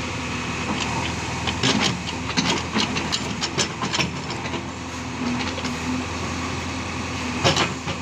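JCB 3DX backhoe loader's diesel engine running steadily as the backhoe bucket digs into a heap of earth. A run of sharp clanks and knocks comes between about one and a half and four seconds in, and another near the end.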